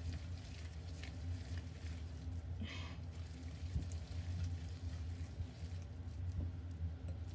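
Wet squishing of salted ground chicken thigh meat being kneaded by hand in a glass bowl, the meat being worked until it turns sticky and clings to the hands. A low steady hum runs underneath.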